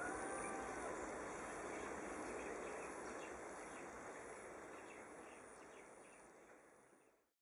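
Distant jet noise from a Boeing 777-200ER's two Rolls-Royce Trent 892 engines at takeoff power: a steady rushing roar that fades away, then the sound cuts off abruptly to silence a little after seven seconds in.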